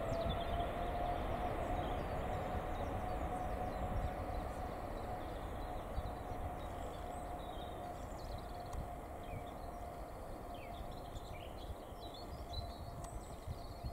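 Boeing 777-300ER's twin GE90-115B turbofans at take-off thrust: a steady whine over a deep rumble, slowly fading as the jet rolls away down the runway. A few faint high chirps come in over the second half.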